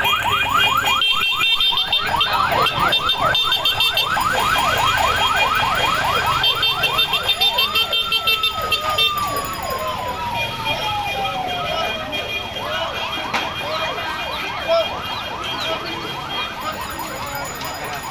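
Police vehicle siren in a fast yelp, sweeping up and down about four or five times a second. About eight seconds in it breaks into one long wail that falls away slowly over several seconds, then goes back to yelping.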